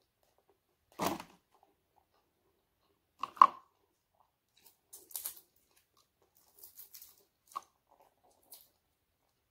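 Crispy fried dried fish crunching and crackling as it is broken apart by hand and chewed: a handful of short, separate crunches, the sharpest about three and a half seconds in, with lighter crackles through the rest.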